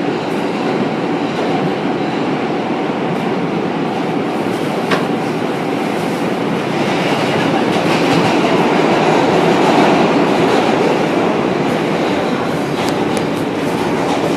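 Subway train running, a steady rumble and rattle of the moving car heard from inside, with occasional clicks from the wheels on the rails, a little louder around the middle.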